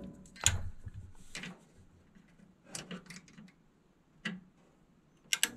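Scattered light clicks and rattles of multimeter probes and wiring being handled at a furnace control board. Near the end comes a sharp double click as the board's relay pulls in, just before the failed blower motor starts to buzz.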